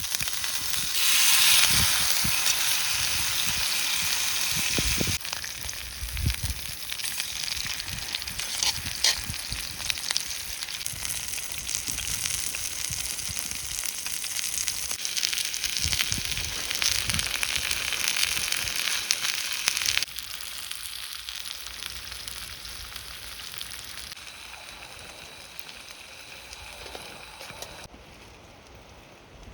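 A thick cut of meat sizzling as it grills over a wood fire, a steady hiss with crackle that drops abruptly in level a couple of times.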